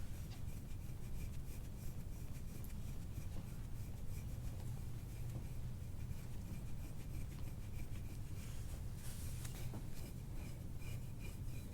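Faint, intermittent rubbing and light scratching, as of hands or cloth moving over skin, over a steady low hum.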